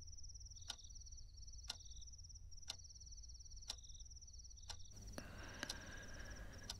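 A clock ticking about once a second, over crickets chirping steadily in the background.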